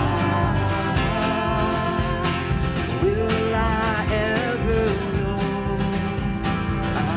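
Live band playing an Americana indie-rock song in a passage without lyrics: guitars and drums keep a steady beat. About three seconds in, a lead melody line slides up and holds for a couple of seconds.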